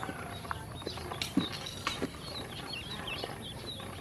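Ducklings peeping in short high chirps, mostly in the second half, while their bills tap and click against a plastic basin as they peck up grain.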